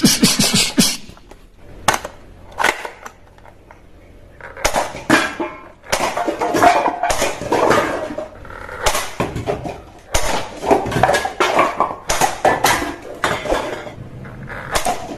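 Hard objects clattering and clicking in irregular clusters, with a quieter stretch a few seconds in and then near-continuous rattling.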